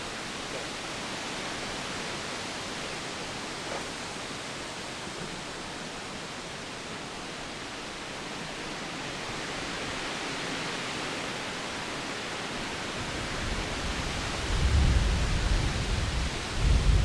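Wind blowing as a steady hiss; about three-quarters of the way in, gusts start to buffet the phone's microphone with a heavy low rumble that grows louder.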